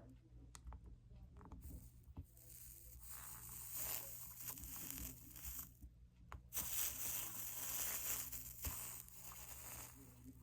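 Flux sizzling as a soldering iron melts 60/40 solder along copper-foiled stained-glass seams: two long stretches of crackling hiss, with a brief pause about six seconds in.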